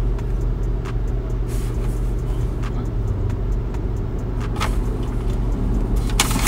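A car idling with its air conditioning running: a steady low hum inside the cabin, with a few faint clicks.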